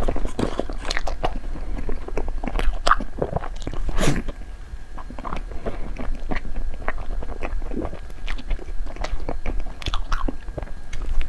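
Close-miked eating sounds: biting and chewing of xue mei niang, snow-skin mochi desserts with cream filling, as a quick irregular run of short mouth noises.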